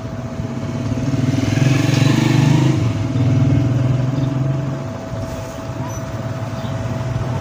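A motor vehicle's engine passing by, growing louder over the first two seconds and fading out about five seconds in.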